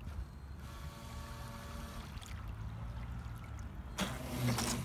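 Electric drive motors of a Carp Lounge RT4 radio-controlled bait boat running as it crosses the water, a faint steady whine over a low rumble, with water churning. About four seconds in comes a louder rushing burst.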